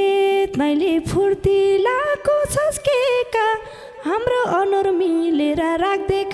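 A woman singing a Nepali dohori folk line almost unaccompanied, her melody sliding and ornamented between notes, with a few light hand-drum taps; near the end the instruments start to come back in.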